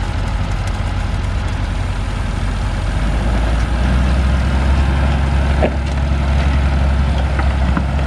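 John Deere 3350 tractor's diesel engine pulling under load, running steadily; about three seconds in its note drops a little and grows louder.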